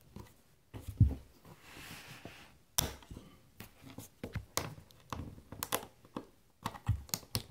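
Handling noise: scattered small clicks and knocks, with a louder low thump about a second in and a brief soft rustle around two seconds.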